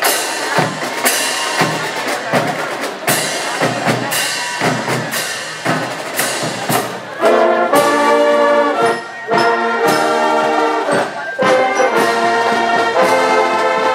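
Marching brass band with sousaphones playing as it parades. Drumbeats carry the first half, then from about seven seconds in the brass comes in with loud held chords, broken by short gaps.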